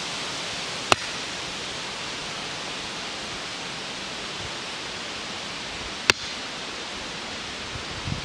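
The blade of a Cold Steel shovel striking into the end of a short birch log to split it: two sharp knocks about five seconds apart, over a steady hiss.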